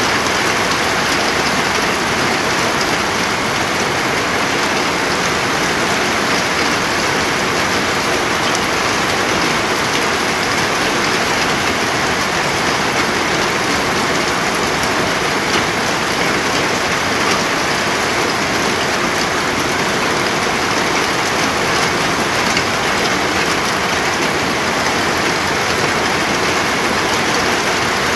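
Steady heavy rain, a dense even hiss of drops falling on surfaces.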